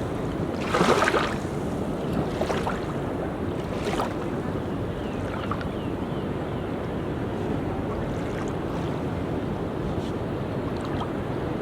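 Ocean surf washing on a beach, with wind on the microphone; a louder burst of sound about a second in.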